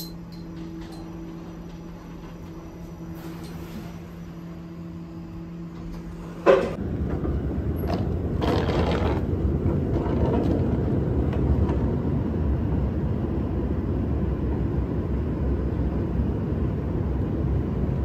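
A lift running with a steady electrical hum, then a sharp knock about six seconds in, after which an airport moving walkway rumbles steadily and louder, its metal pallets rolling underfoot.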